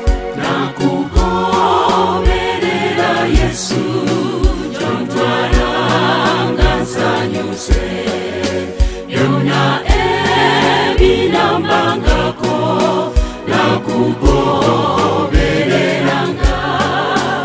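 Church choir singing a Luganda gospel song in harmony, over a backing track with a steady drum beat.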